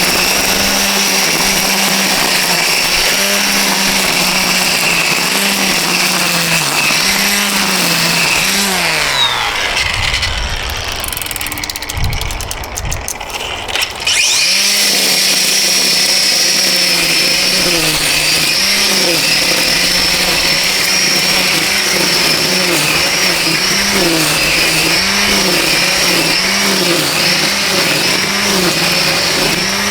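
Battery string trimmer's brushless motor running at high speed, its pitch dipping again and again as the line cuts into grass. About nine seconds in it winds down and stops, then starts again sharply around fourteen seconds and keeps cutting with the same dips.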